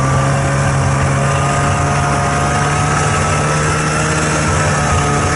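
Snowmobile engine running steadily while travelling, its pitch rising slowly as it speeds up.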